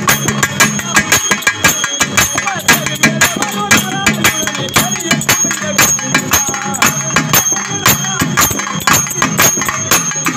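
Live folk music played loud through microphones: fast drum strokes with a steady metallic ringing over them and a wavering melody line.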